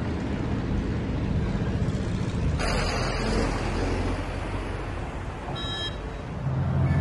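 Road traffic: cars driving by with a steady low engine and tyre rumble, and a short burst of louder rushing noise about three seconds in.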